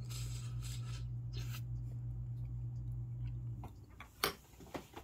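A man sipping soup off a spoon, then the metal spoon clicking against the ceramic soup bowl a few times, loudest just after four seconds in. A steady low hum cuts off just before the clicks.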